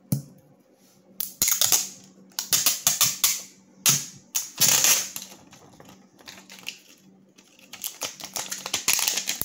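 Crackling and clicking of a clear plastic screen-protector film being handled over a phone, in several short bursts with quiet gaps.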